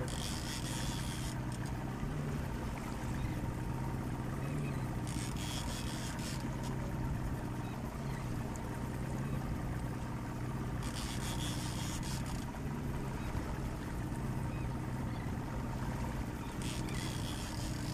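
Boat engine idling steadily with a low hum, with a short hiss every five or six seconds.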